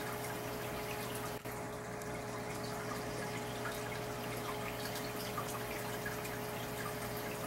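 Aquarium water circulation: water trickling and dripping steadily, with a steady low hum underneath.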